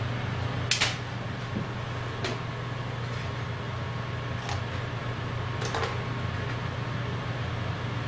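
Steady low hum of running room equipment, such as a fan or air conditioner, with four short sharp clicks of handled objects. The loudest click comes about a second in; the others follow at roughly 2, 4.5 and 5.5 seconds.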